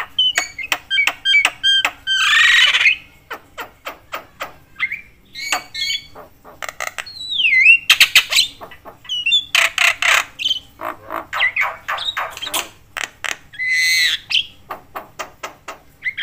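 A Javan myna calling nonstop. Rapid dry clicks run together with whistled notes that swoop up and down, broken by several loud, harsh screeches.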